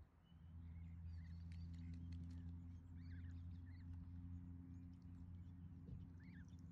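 Faint, short high bird chirps and peeps scattered through, over a steady low hum.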